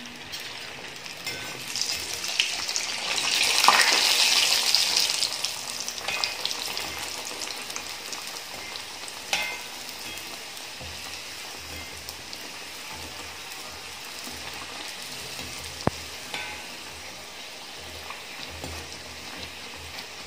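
Bhatura dough deep-frying in hot sunflower oil in a kadai: the sizzle swells to its loudest about four seconds in, then settles to a steady, quieter sizzle. A few sharp clicks of the metal slotted spoon against the pan.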